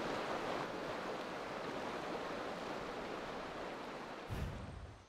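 Steady rush of flowing water from a steaming hot-spring runoff stream, with a brief low thump about four seconds in, fading out near the end.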